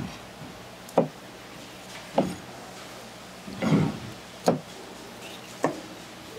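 Kitchen knife knocking on a plastic cutting board while sea squirts are cut open and trimmed: four short, sharp knocks spaced a second or so apart, with one longer, duller sound between the second and third.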